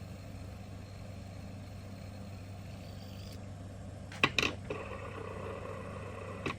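Fidget spinner whirring on its steel bearing, a faint steady whir, with two sharp clicks about four seconds in and another near the end as it is handled, then a slightly louder hum. The bearing sounds a little funny, which the owner traces to a bearing that was a little dirty.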